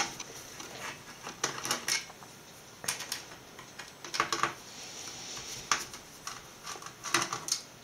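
Scattered small metallic clicks and taps of a screwdriver working the screws that hold down the fan and heatsink of an all-in-one PC, with a quick cluster of clicks near the end.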